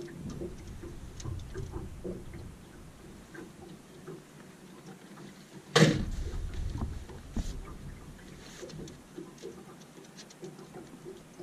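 Footsteps and knocks on an aluminium boat's deck as a man moves forward through it, with one sharp knock about six seconds in and light ticking throughout.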